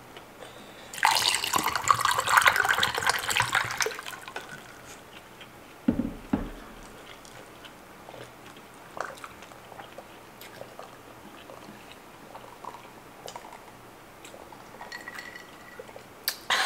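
Korean barley tea (boricha) poured from a plastic jug into a glass of ice cubes for about three seconds, with the ice crackling under the stream. A thump follows about six seconds in, then scattered faint clicks.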